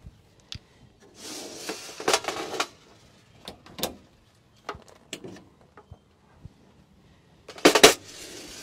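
Clicks and knocks of a water hose and its fittings being unhooked and handled at a camper trailer's outdoor kitchen sink, with a rattling stretch from about one to two and a half seconds in. A louder sliding clatter near the end comes from a drawer being pushed shut.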